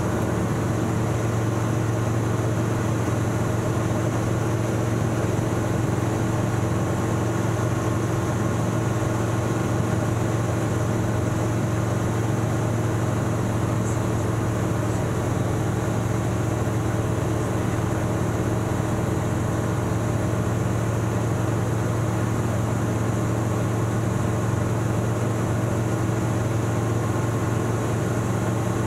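Single-engine light aircraft's piston engine and propeller running steadily at climb power, heard from inside the cabin as a constant low drone.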